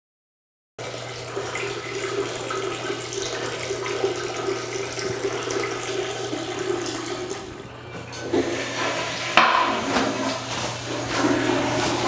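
Bathroom water sounds picked up by a body-worn wireless microphone left switched on. The water starts abruptly out of dead silence and runs steadily for several seconds, with a constant low hum underneath. Near the end there are a few sharp knocks and more uneven splashing.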